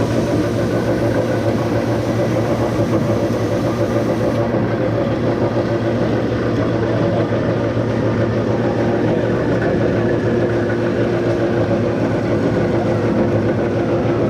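A big industrial power saw running, a loud steady mechanical drone with several constant hum tones.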